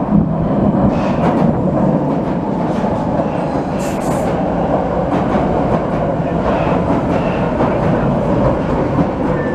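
Vienna U-Bahn metro train pulling into an underground station: a loud, steady rumble of wheels on rails with scattered clicks, and a faint tone falling in pitch near the end as the train slows.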